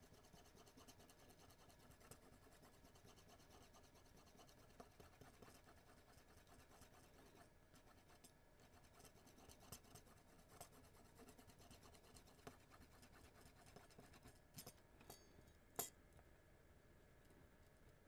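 Faint, steady scratching of a rubber eraser rubbed back and forth over a remote control's circuit board, scrubbing the stained film off the button contact pads. A few light clicks come late on, the sharpest about two seconds before the end.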